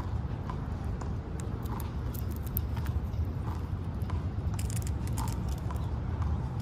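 Squirrel chewing and cracking peanut shells: irregular small crunchy clicks over a steady low rumble.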